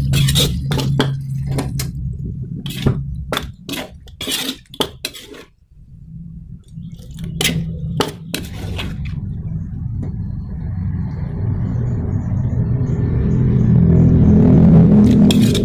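Metal ladle scraping and clinking against a wok during stir-frying: a rapid run of sharp clinks for the first five seconds or so, a few more around seven to nine seconds in, over a steady low hum.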